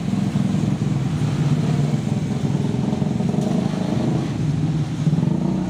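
Road traffic: cars and motorcycles running past at close range, with a steady engine hum throughout.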